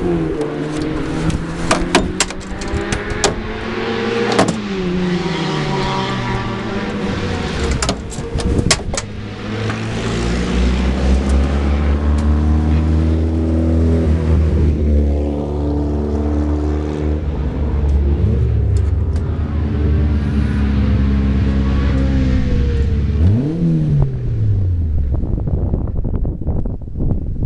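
Formula Monza single-seater race cars passing at speed with their small engines revving hard, the pitch dropping sharply as each car goes by, several times. A steady low engine rumble sits underneath through the middle stretch.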